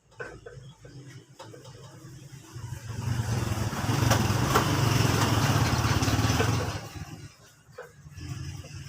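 A motor vehicle engine running with a steady low hum. It grows louder from about three seconds in, holds for several seconds, and drops away again near seven seconds.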